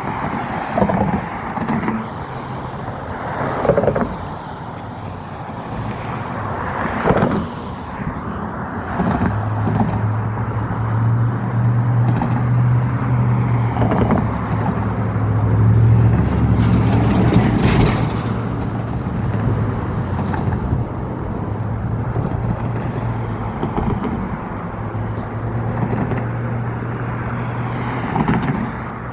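Motor traffic, with a large engine running with a steady low drone from about nine seconds in, over a few short knocks early on.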